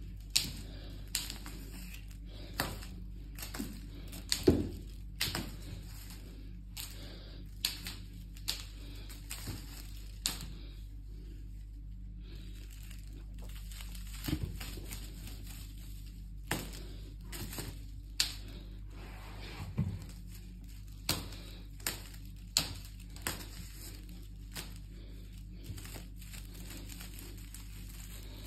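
A kitten batting and pouncing at a wand toy with crinkly tinsel strands on a tiled floor: scattered sharp clicks and crinkles, irregular, about a second apart, over a low steady hum.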